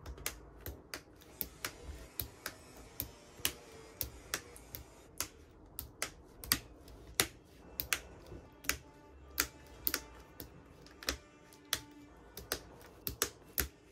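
Mechanical keyboard switches pressed one after another into a GMK67 hot-swap keyboard, each seating with a sharp plastic click, about two a second at an uneven pace.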